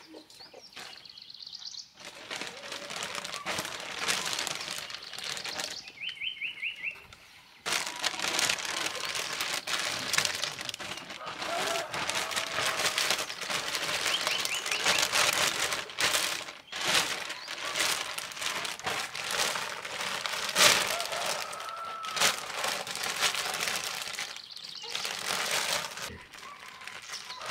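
Large clear plastic bag rustling and crinkling as it is handled and gathered up. There is a short pause about six seconds in, when a bird chirps briefly.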